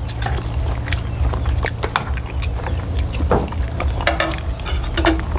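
Metal spoons clinking and scraping against plates and a serving dish during a meal: many small sharp clicks at an uneven pace, over a steady low hum.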